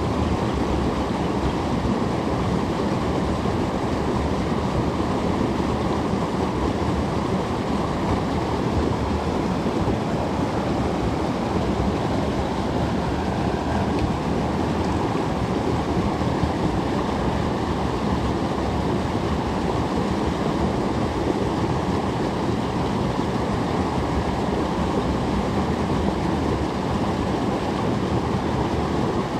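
Shallow forest creek running fast over a riffle, a steady, unbroken rush of flowing water.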